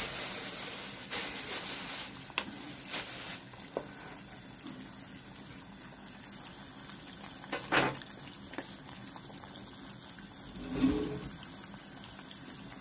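Pot of leafy greens boiling on a stove, with a steady bubbling hiss. A utensil stirring in the pot knocks against it a few times.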